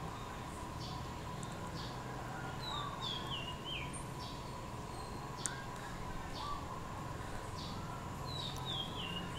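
Wild birdsong in the background: a small bird sings a short phrase of notes stepping downward, twice, about five and a half seconds apart, among repeated short high chirps. A steady faint hum runs underneath.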